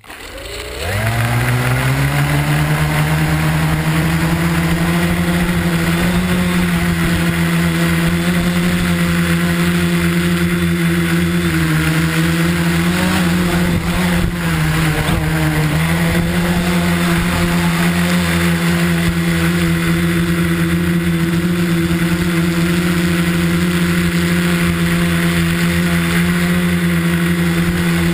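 Tricopter's three electric motors and propellers heard from the onboard camera: they spin up in a rising whine over the first second or so, then hold a steady, loud drone with a few overtones. About halfway through the pitch wavers and dips briefly before settling back to a steady hover tone.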